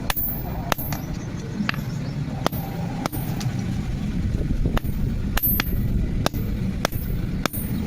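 Hammer blows on metal at an irregular pace, about one every half second to a second, some leaving a short metallic ring. A steady low rumble runs underneath.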